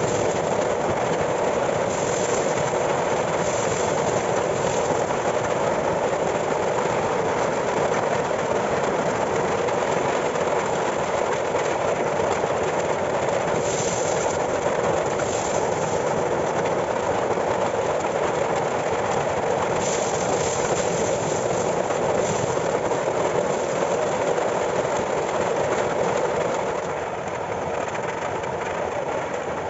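Homemade electric-motor corn sheller running, with a steady mechanical rattling clatter and brief sharper rattles now and then. The newly fitted paddles run without any scraping. The sound drops slightly near the end.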